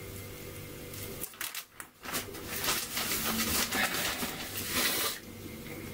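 Rustling and handling noise close to the microphone, with many small clicks, starting about two seconds in and stopping about a second before the end, after a brief drop to near silence.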